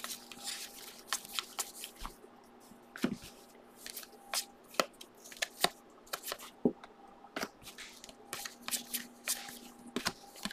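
A stack of football trading cards being flipped through by hand: irregular light clicks and rubs of card against card, a few every second.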